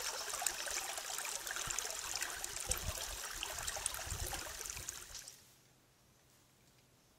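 Running water, a stream trickling and splashing, fading out about five seconds in and leaving only a faint low hum.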